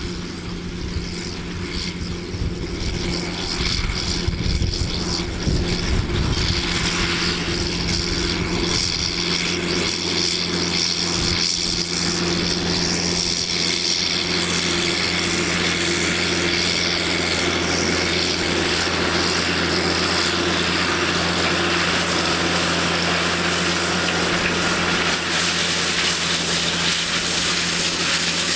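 Diesel engine of a large John Deere farm machine running at a steady working speed with a constant hum. It grows a little louder over the first few seconds, then holds steady.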